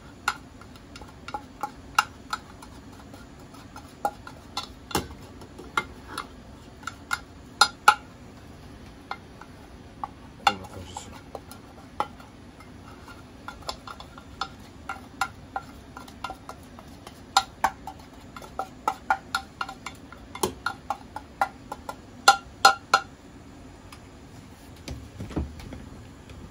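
A utensil scraping and clicking against a square UNIFLAME aluminium camp cooker, stirring curry powder as it dry-roasts over a small gas stove. The clicks come irregularly, often several in quick clusters, and stop a few seconds before the end.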